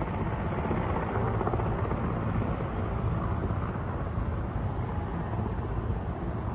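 Military helicopter flying nearby: a steady rotor beat over engine rumble, with no change in level throughout.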